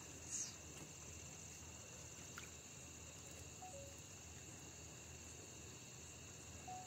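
Steady night-time chorus of crickets and other insects, a faint continuous high trill. A short falling swish about a third of a second in stands out as the loudest moment.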